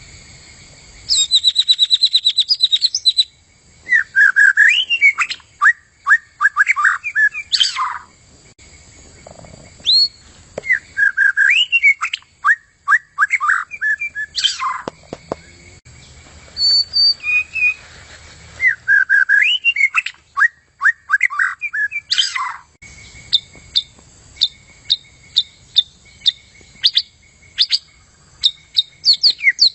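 White-rumped shama (murai) singing: repeated phrases of quick whistled notes and rapid trills, several ending in a sharp sweeping note, with short pauses between phrases.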